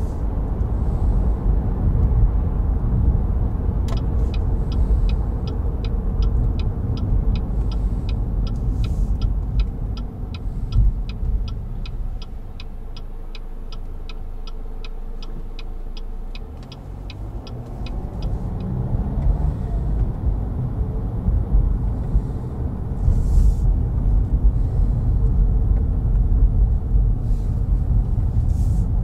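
Car interior with steady road and engine noise, and the turn-signal indicator ticking evenly, about two and a half ticks a second, from about four seconds in until it stops about two-thirds of the way through. Midway the noise drops to a quieter engine idle for a few seconds as the car waits, then rises again as it pulls away.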